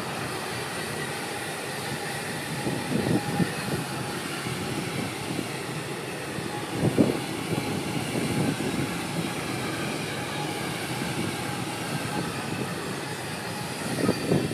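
Container freight train's wagons rolling past on the rails: a steady rolling rumble of wheels with a faint steady whine above it, and louder wheel knocks now and then, the strongest about seven seconds in. The last wagon goes by near the end.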